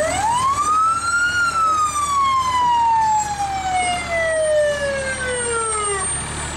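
Fire engine siren sounding one wail in a parade. Its pitch rises quickly for about a second and a half, then falls slowly over several seconds and stops shortly before the end.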